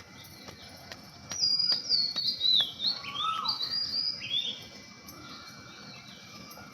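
Several small birds chirping, a quick flurry of short, down-slurring calls about a second in, tailing off to fainter calls after about four and a half seconds.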